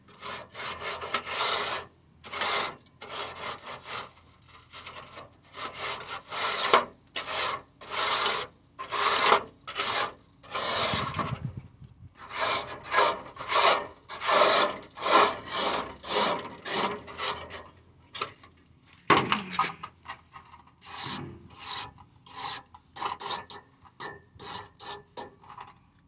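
Repeated rasping, scraping strokes made by hand, roughly two a second in runs with short pauses between them, like something being scrubbed or rubbed hard.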